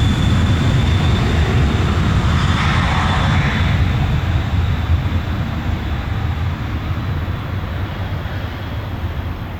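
Cessna Citation XLS business jet's twin Pratt & Whitney PW545B turbofans at takeoff power: a steady high whine over a low rumble. The whine slides slightly lower and thins out about halfway through, and the sound slowly fades as the jet moves away.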